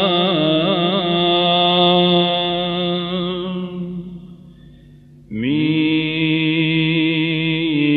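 Solo male voice chanting a Syriac liturgical hymn, holding a long ornamented vowel that wavers in pitch and fades out about four seconds in. After a brief gap a new sustained note begins.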